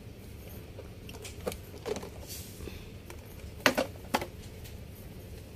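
A few sharp plastic clicks and light clatter from a clear plastic toy bus filled with sweets being handled and set down on a tile floor, the loudest click a little past the middle.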